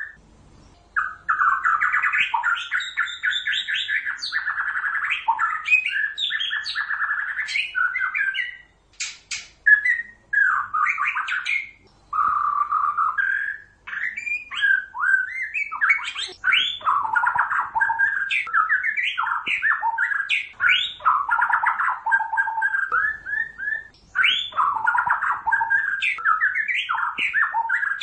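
White-rumped shama (murai batu, Pasaman type) singing a long, varied song of quick sweeping whistles and rapid trills in phrases broken by short pauses, with a few sharp clicking notes about nine seconds in.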